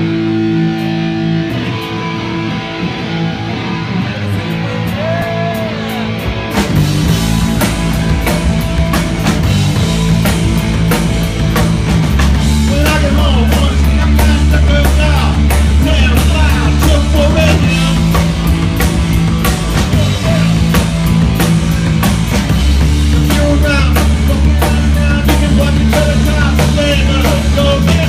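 Live rock band playing loud: an electric guitar plays alone at first, then the drums with cymbals and the bass come in about six and a half seconds in, and the full band keeps going.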